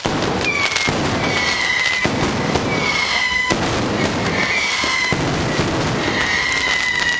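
Fireworks going off in a continuous crackle of pops and cracks, with several whistles that each slide slightly downward in pitch.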